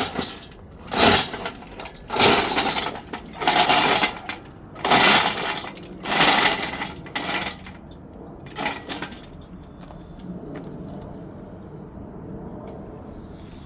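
Workshop noise: a series of short, loud rattling bursts about once a second, which stop about eight seconds in and leave a low steady hum.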